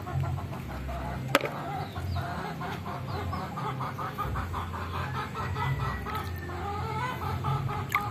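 Chickens clucking, a run of short repeated notes, over a low rumble, with one sharp click about a second in.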